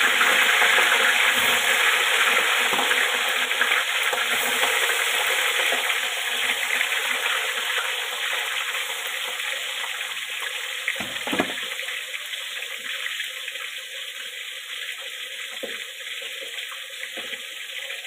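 Fish seasoned with turmeric and salt frying in hot oil: a dense, steady sizzle that slowly grows quieter, with a few light knocks, one about eleven seconds in.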